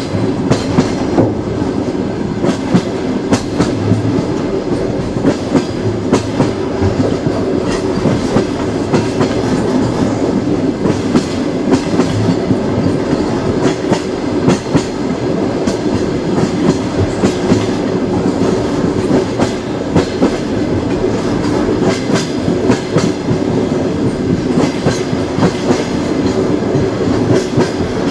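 Passenger train rolling along, its wheels clattering over the rail joints: a steady rumble with frequent short clicks.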